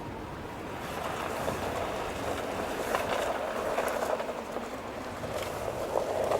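Skoda Octavia Scout driving off-road: a rushing tyre noise over loose ground, swelling about a second in, with scattered crackles.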